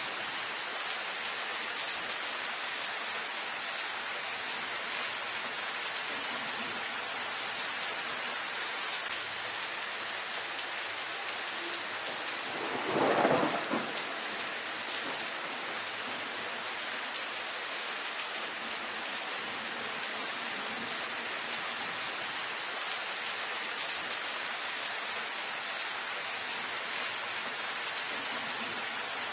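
Steady rain falling on dense foliage, an even hiss throughout. About halfway through comes one short, louder burst lasting about a second and a half.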